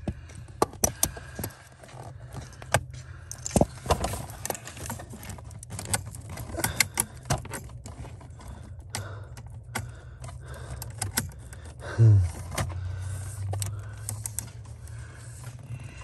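Scattered light clicks, taps and jingling rattles from hands fitting a plastic brake pedal switch and a small spring clamp under a pickup's dashboard, over a steady low hum. About twelve seconds in comes a brief low, falling sound, the loudest moment.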